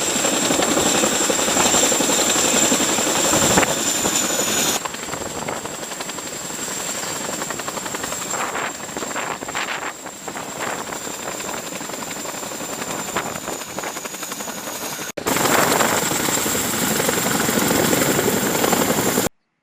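CH-47 Chinook tandem-rotor helicopter running: dense rotor and turbine noise with a steady high-pitched whine over it. The sound changes abruptly about five seconds in and again about fifteen seconds in, then stops suddenly near the end.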